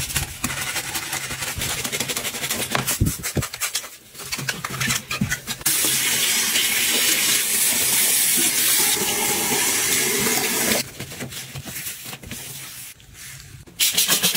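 A stiff brush scrubbing a foamy ceramic sink drain stopper in quick strokes, then a tap running water into the basin for about five seconds. Softer rubbing follows, and quick scratchy strokes start again near the end.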